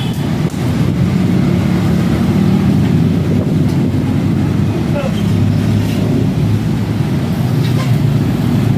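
Yamaha NMAX 155 scooter's single-cylinder engine running with a steady low drone.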